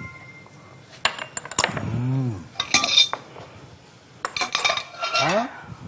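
Scattered clinks and knocks of a small glass oil cup and a nonstick wok on a gas stove's metal grate as oil is poured in and the wok is lifted and tilted to spread it.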